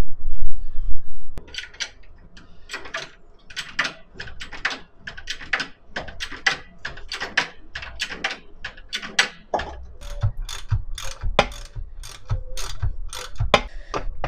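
Hand socket ratchet clicking in quick, uneven runs of strokes as engine mount bolts are undone. A loud low rumble fills the first second or so.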